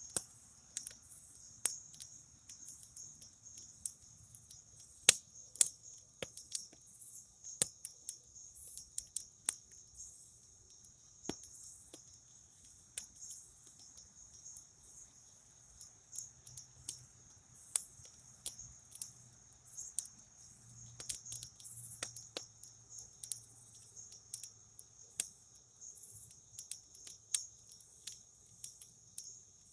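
Campfire crackling, with sharp irregular pops and snaps, over the steady pulsing chirp of crickets.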